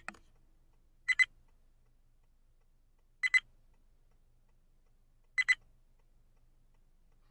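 A short, high-pitched double tick, heard four times, the last three about two seconds apart, over a faint steady low hum.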